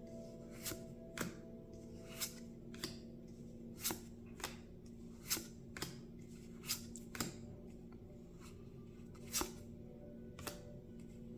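Trading cards from a Lord of the Rings TCG booster pack flipped through one at a time, a sharp flick of card on card about once a second, over faint steady background music.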